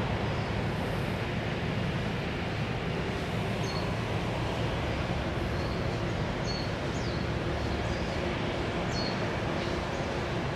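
Steady outdoor ambient noise with small birds chirping faintly: short, high, downward chirps about once a second from a few seconds in.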